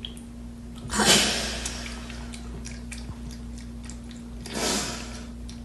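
A cat laps from a small plastic dish with faint clicks, and twice, about a second in and again near the end, gives a loud, short, breathy sneeze that fades quickly.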